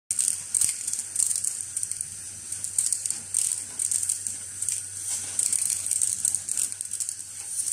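Vacuum suction system of an inline selective lead cutter machine running: a steady high-pitched airflow hiss over a faint low hum, with frequent irregular clicks and rattles as clipped component-lead offcuts are sucked into the clear collection canister.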